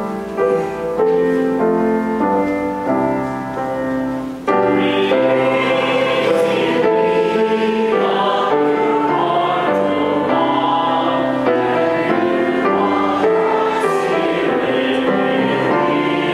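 Outro music with a choir singing; the sound grows fuller and louder about four and a half seconds in.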